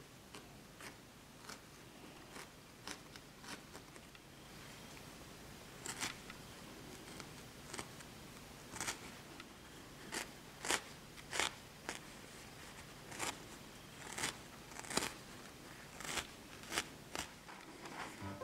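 Barbed felting needle stabbing repeatedly into wool, a short sharp poke about every half second to second, the pokes stronger in the second half.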